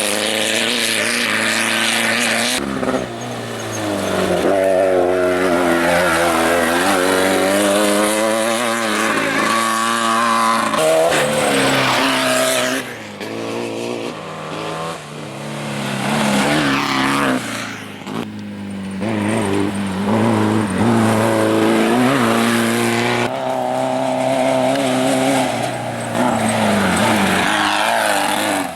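Off-road race vehicles' engines revving hard, the pitch rising and falling with throttle and gear changes. The audio shifts abruptly several times, as from separate passes edited together.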